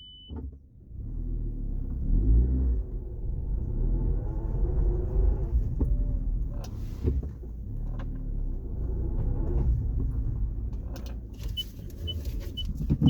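A low, steady rumble, with four short high beeps about half a second apart near the end.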